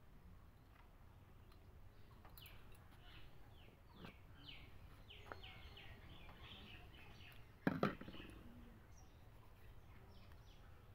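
A bird calling outdoors in a run of short, falling chirps, about two a second, over faint low background hum. Partway through, a sharp double knock stands out as the loudest sound.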